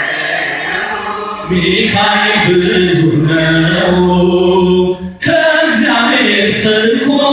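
Choir singing an Ethiopian Orthodox mezmur (hymn) in a chant style, on long held notes, with a short break about five seconds in.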